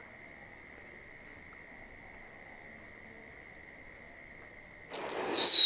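Insects chirping faintly: a steady high trill with a fainter chirp pulsing about five times a second. Near the end a whistling 'mouse' firecracker, taped to a stick as a makeshift rocket, ignites with a sudden loud whistle and hiss, the whistle slowly falling in pitch.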